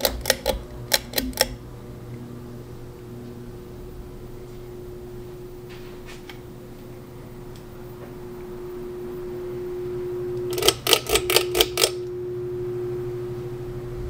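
Ceiling fan motors running with a steady electric hum, the tone swelling about halfway through. A quick run of sharp clicks comes at the start and another about eleven seconds in, from a hand working a fan's pull-chain switch.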